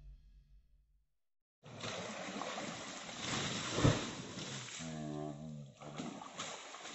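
Music fades out, then after a short silence comes outdoor sound of water being lifted by hand with a dongi, a rope-swung metal irrigation scoop. Water sloshes, a sharp thump comes about four seconds in, and a man's voice sounds briefly a second later.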